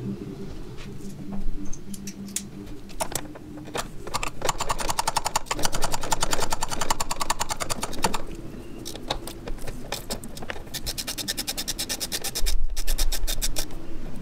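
Ratchet wrench clicking in quick, even runs as the small bolts holding the clutch cable to the firewall are backed out, with a few single clicks and knocks between runs.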